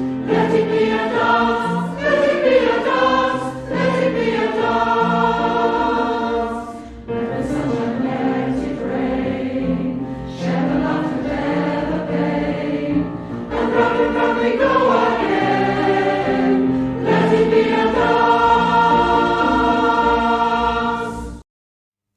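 A choir of voices singing a hymn in several parts, with long held notes; the singing cuts off abruptly about a second before the end.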